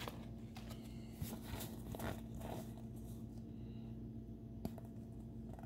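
Faint rustling and soft flicks of Pokémon trading cards sliding against each other as they are shuffled through in the hand, a few separate strokes over a steady low hum.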